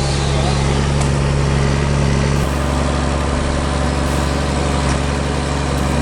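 Diesel engine of a John Deere 1110D forwarder running steadily, a continuous low engine drone; its tone shifts slightly about two and a half seconds in.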